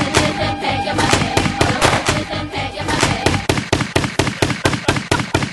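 Music with a steady beat, overlaid from about three seconds in by a fast, even run of sharp shots, about five a second.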